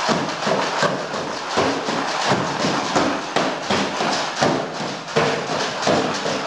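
A drum kit made of cardboard boxes, beaten in a fairly even beat of about two to three hits a second.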